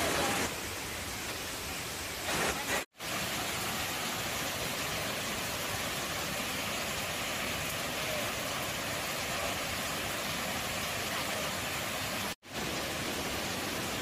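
Waterfall rushing: a steady, even noise of falling water, cut off completely twice for an instant, about three seconds in and about twelve seconds in.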